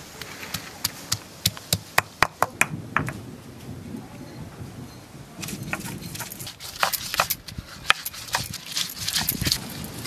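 Stone roller of a sil-batta knocking down on ginger, garlic and dried red chillies on a flat grooved stone slab, about ten sharp knocks over the first three seconds as they are crushed. From about halfway through, the roller is rocked back and forth over the slab, grinding them into a wet paste with a rough scraping and more knocks.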